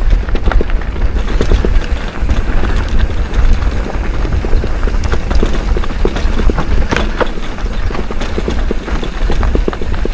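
Mountain bike rattling and clattering over a rocky dirt trail, many irregular knocks and clicks over a steady low rumble of the ride.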